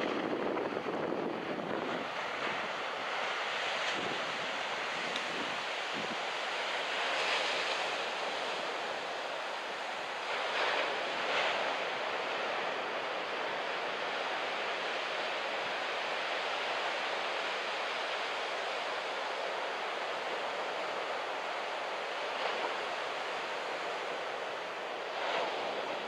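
Surf breaking on a sandy beach, a steady rush of noise that swells a few times, with strong wind buffeting the microphone.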